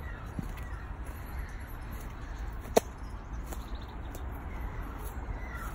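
Faint bird calls over low rustling as someone pushes through dry reeds and brush. One sharp snap or click about three seconds in is the loudest sound.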